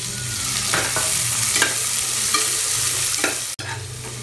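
Sliced onions sizzling in hot ghee in a pressure cooker while a metal ladle stirs them, scraping against the pan about once a second. The sizzle drops suddenly about three and a half seconds in.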